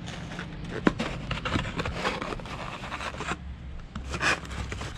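Rustling and scraping of things being handled, with several sharp clicks and taps.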